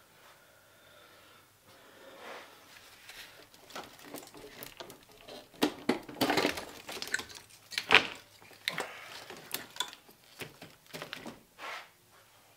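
Irregular clatter, rattles and knocks of parts being handled and worked loose in a Subaru WRX engine bay as the intake manifold comes off. It starts faint, is busiest in the middle, and has one sharp knock about two-thirds through.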